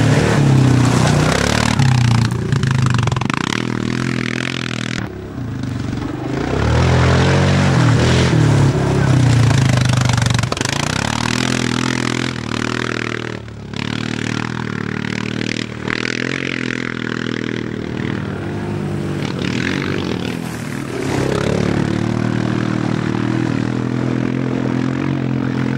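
Quad bike (ATV) engines revving and labouring on an off-road course, the engine note rising and falling again and again as the throttle is worked.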